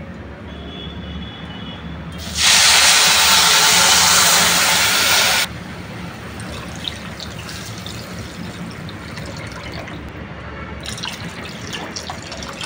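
Water poured from a measuring cup into a hot kadai of ghee-toasted broken wheat (dalia) hisses loudly for about three seconds, then settles to a quieter bubbling. Near the end another cupful is poured in, splashing and crackling.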